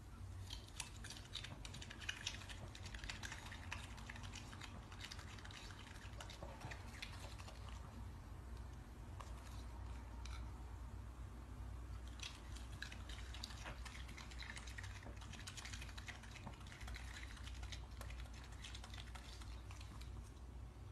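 A raccoon chewing and smacking on soft fruit: faint wet clicks and smacks in irregular runs, over a low steady hum.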